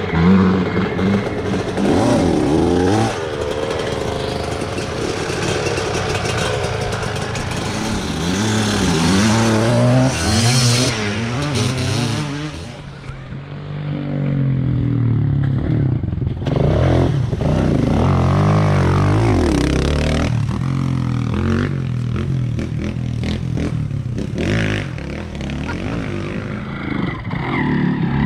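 Vintage enduro dirt bike engine, ridden along a forest trail, its revs rising and falling as the rider works the throttle, with a short ease-off about halfway through.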